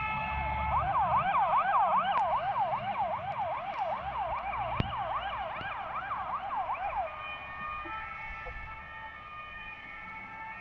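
Fire engine siren. A steady two-tone changes about a second in to a fast yelp that sweeps quickly up and down, then goes back to the two-tone at about seven seconds. It fades as the truck drives away.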